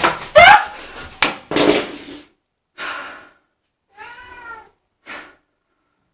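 A pop-up toaster springs up with a sudden clack, and a woman screams in fright with a falling cry, then gasps for breath and lets out a short whimper about four seconds in.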